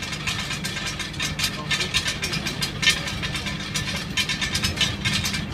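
A strange, rapid and uneven clicking rattle aboard a KLM Cityhopper airliner, several clicks a second, over the cabin's steady low hum.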